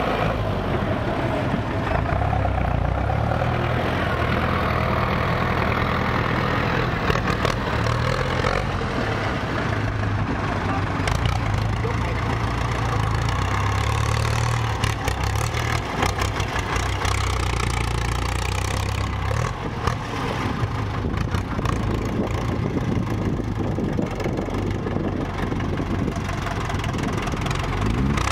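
Diesel engines running steadily at idle: a six-wheel dump truck with its bed raised to tip soil, and a Ford 6600 farm tractor close by. Scattered knocks and clatter come through in the middle.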